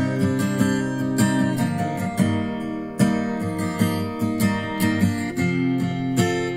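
Music: strummed and plucked acoustic guitar playing at a steady rhythm.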